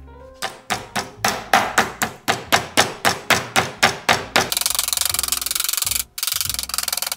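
Metal meat-tenderizer mallet pounding pork tenderloin on a wooden cutting board: about four even strikes a second for some four seconds. At about four and a half seconds the strikes give way to a dense, steady noise, with a brief break near six seconds.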